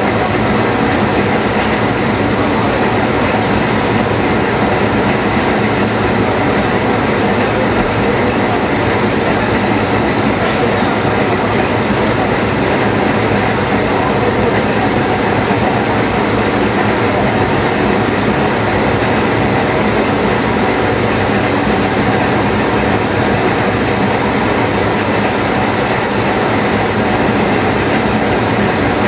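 GDS-100 spring coiling machine running, its feed rollers driving wire through the coiling tooling to form a rolling door spring. It makes a loud, steady, unbroken mechanical noise at an even level, with faint steady hums.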